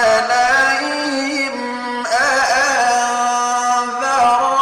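A man's solo voice reciting the Quran in the melodic mujawwad style, drawing out the word "alayhim" in long held notes with ornamented melodic turns.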